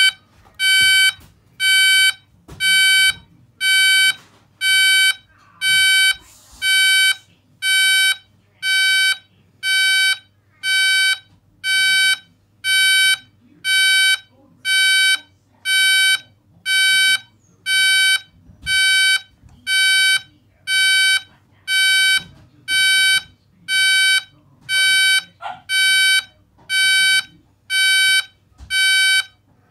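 Texecom intruder alarm sounding its entry-delay warning tone: a steady, high-pitched beep about once a second, each beep about half a second long, the signal to disarm before the entry timer runs out and the alarm goes off.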